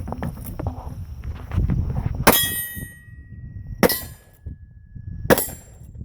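Three shots from a Winchester 1895 lever-action rifle about a second and a half apart, each answered at once by a steel target's clang that rings on with a high tone.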